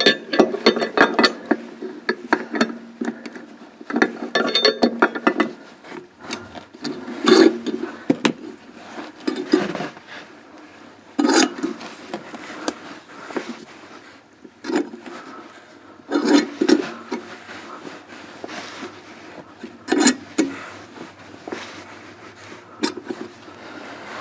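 A flaring tool being worked on a 3/8-inch propane line: irregular metal-on-metal scraping and creaking strokes, with pauses between them, as the tool is turned down to flare the tube end.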